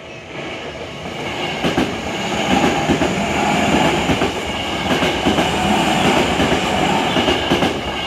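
Tokyu Meguro Line electric commuter train passing close by at a level crossing. It gets louder over the first couple of seconds and then holds steady, with the clack of wheels over rail joints repeating throughout.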